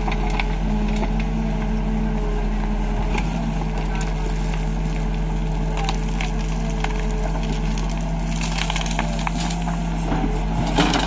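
Case 770 backhoe loader's diesel engine running steadily while the backhoe bucket digs and scrapes through rocky soil, with stones knocking and crunching. Near the end the bucket dumps its load of soil and rock into a tractor trolley, a longer burst of rattling and clatter.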